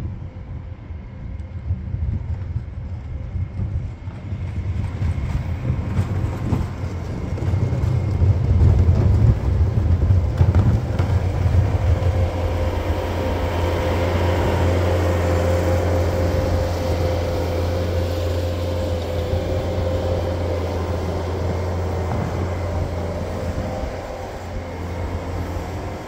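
Bobcat skid-steer loader's diesel engine running as the machine drives up close, with a steady whine over the low engine hum. It grows loudest about eight to eleven seconds in, holds steady, then eases off near the end as the machine moves away.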